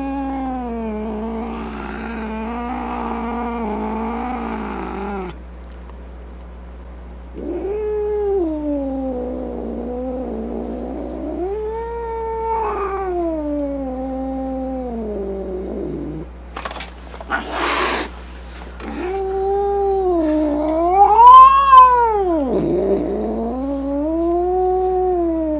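Angry cat yowling: a string of long, wavering wails that slide up and down in pitch. A short, harsh hiss breaks in about two-thirds of the way through.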